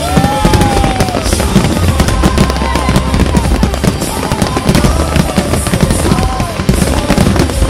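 Fireworks display: dense, rapid crackling and bangs over a steady low rumble.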